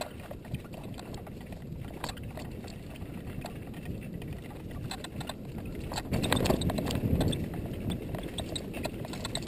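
Mountain bike riding fast down a dirt singletrack: tyre rumble and rattling of the bike, with sharp clicks and knocks as it goes over bumps, louder for a stretch about six seconds in.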